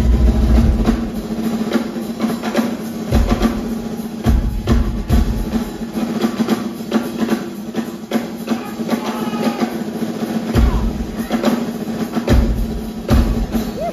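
Live drum kit solo: fast rolls and dense strokes across the snare and toms, with bass drum hits and strong low notes that come and go.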